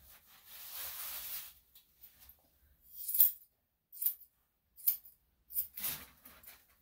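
Grooming scissors snipping a Yorkshire Terrier puppy's coat: a handful of short, sharp snips roughly a second apart, after a soft rustling in the first second and a half.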